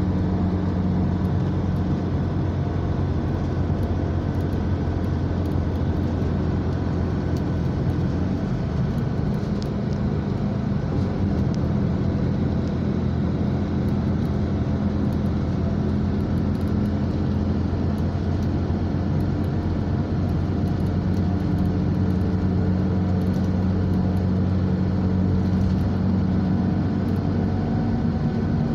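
Engine drone and road noise heard from inside a vehicle cruising at highway speed: a steady low hum over a continuous rush of tyre and wind noise.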